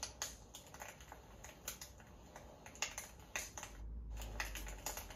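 Irregular small clicks and crackles, several a second, with a brief lull a little under a second long near the end.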